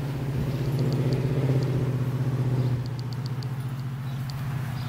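An engine running steadily with a low, even hum, a little louder for the first three seconds and then easing off, with a few faint light ticks over it.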